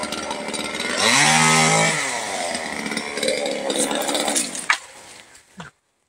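Chainsaw running, revved up and back down about a second in, its pitch rising then falling. A sharp click near the end.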